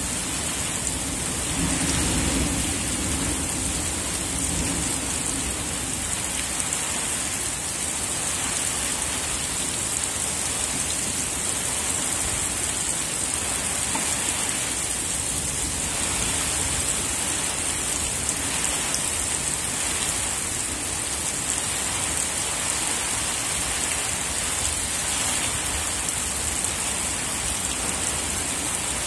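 Heavy unseasonal rain pouring steadily onto a waterlogged field, with a low rumble of thunder about two seconds in that fades over a few seconds.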